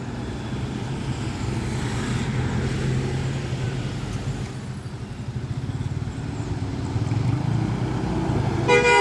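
Heavy diesel bus engines running as buses pass, a steady low rumble with some traffic noise. Near the end a horn gives a short, steady-pitched blast.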